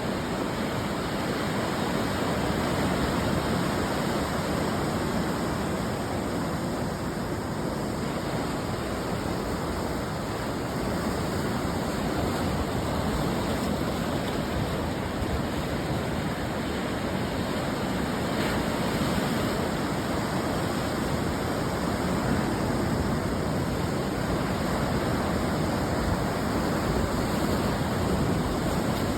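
Ocean surf breaking on the shore, a steady dense wash of waves with gentle slow swells in loudness.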